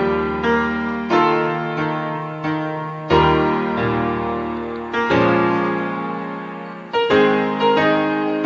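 Background piano music: chords struck every second or two and left to fade.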